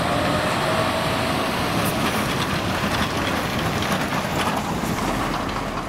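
Road traffic: a heavy diesel truck with a trailer drives past close by, its engine and tyres making a loud, steady noise, with more trucks coming along behind.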